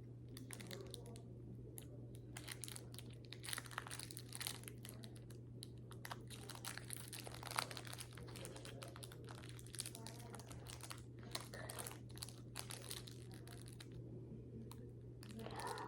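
Foil trading-card booster pack being handled and torn open: faint, irregular crinkling and tearing, over a steady low hum.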